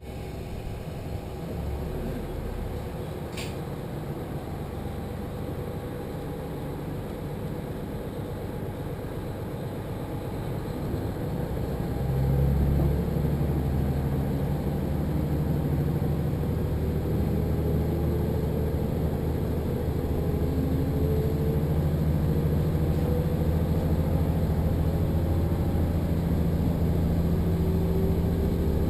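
Diesel railcar heard from inside the carriage: a steady engine hum with a single click a few seconds in. About twelve seconds in the engine opens up and gets louder, and a faint rising whine follows as the train gathers speed.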